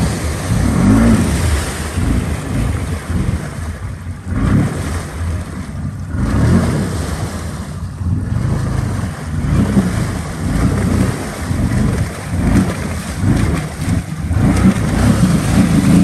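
Can-Am Outlander XMR ATV engine revving up and down as it churns through deep mud and water, with the splash and spray of the tyres in the mud hole. The revs drop briefly several times, about 4, 6 and 8 seconds in.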